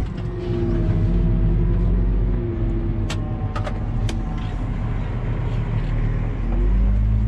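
Valtra tractor's diesel engine running steadily, its low hum easing off about two and a half seconds in and building again near the end. A few sharp clicks come in the middle.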